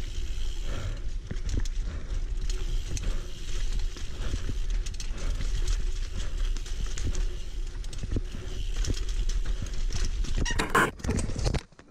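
Single-speed mountain bike riding over singletrack dirt: steady rumble of tyres and wind with constant small rattles and knocks from the bike over the rough trail. Near the end a louder rush of noise, then the sound drops off suddenly.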